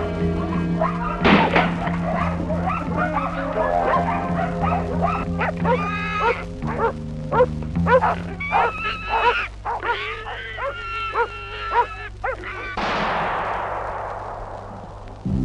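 Dogs barking and yelping as they bait a wild boar, over sustained orchestral film music. Near the end a sudden noisy crash dies away over about two seconds.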